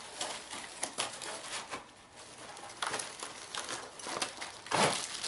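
Rustling and crinkling of cardboard and packing as a long cardboard box is opened and its contents handled, with scattered sharp clicks and a louder rustle near the end.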